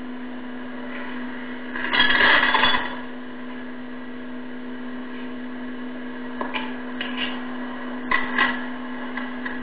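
A steady electrical or machine hum. A louder burst of noise comes about two seconds in, and shorter bursts come near the end.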